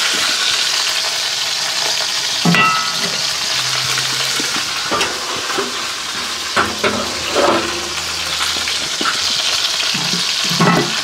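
Cast iron grill grate halves being set back into a charcoal grill, clanking several times; the knock about two and a half seconds in rings briefly like struck metal. A steady hiss runs underneath.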